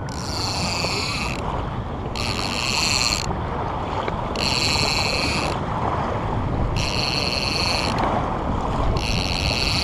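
Small waves lapping and wind buffeting the microphone just above the water's surface. A high tone with several overtones repeats five times, about every two seconds.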